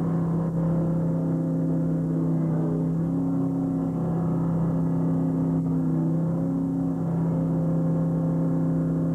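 Steady drone of a fishing boat's diesel engine and deck machinery: a constant low hum with a higher tone above it that wavers slightly in pitch.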